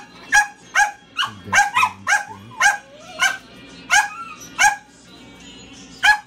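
A small dog yapping over and over in short, sharp, high-pitched barks, about two a second, with a pause of over a second near the end. Soft background music runs underneath.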